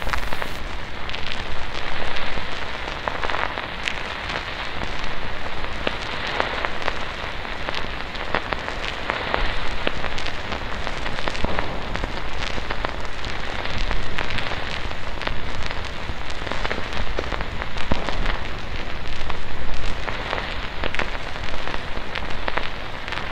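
Isuzu V-Cross 4x4 rolling slowly along a dirt track: a steady crackling patter of tyres over gravel and leaves above a low rumble.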